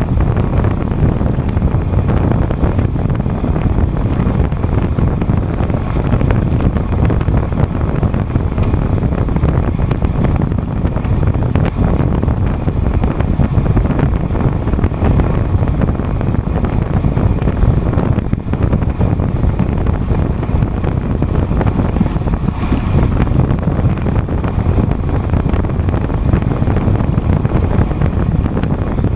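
Steady wind noise buffeting the microphone while riding a road bike at time-trial speed: an unbroken low rumble of rushing air.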